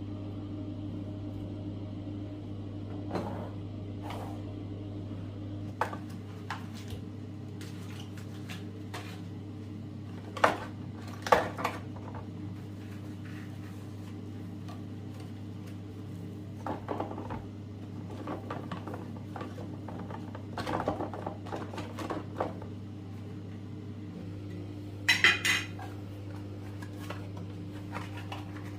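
Dishes and cutlery clinking and knocking now and then over a steady low hum, with one brighter, ringing clink near the end.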